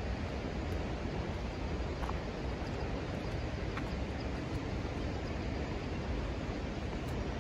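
Steady outdoor rushing noise with a deep rumble underneath, unbroken throughout.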